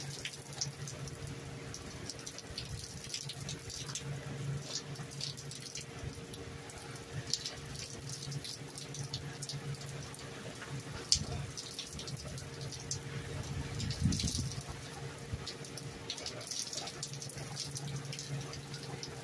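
Heavy rain pouring onto pavement, with close splashing and dripping water and scattered sharp ticks of drops. A faint steady low hum runs underneath, and the rain swells briefly about fourteen seconds in.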